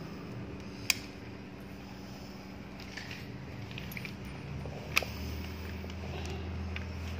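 Two sharp clicks, about a second in and about five seconds in, with a few fainter irregular ticks between them, over a steady low hum.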